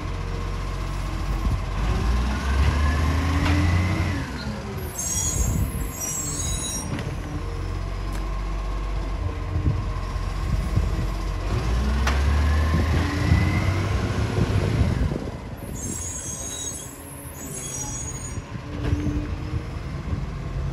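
Bucher side-loading garbage truck working its automated bin arm twice. Each time the diesel engine revs and a hydraulic whine rises in pitch as the arm lifts a wheelie bin, then a short burst of hissing follows.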